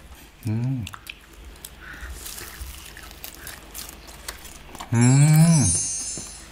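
Fried chicken being bitten and chewed, with small crunchy clicks, and a man's hummed "mmm" of enjoyment: a short one about half a second in and a longer, louder one falling in pitch near five seconds. A high twinkling sound effect plays over the second hum.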